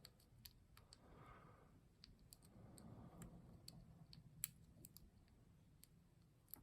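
Faint, irregular small metallic clicks of a lock pick working the pins of a pin-tumbler lock under light tension, with sharper single clicks about four and a half seconds in and again near the end.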